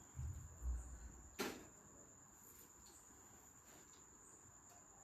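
Faint steady high-pitched whine, with a few dull low thumps in the first second and one sharp click about one and a half seconds in.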